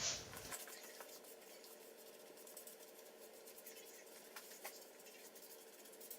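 Near silence: faint room tone with a steady low hum, broken by two faint ticks about four and a half seconds in.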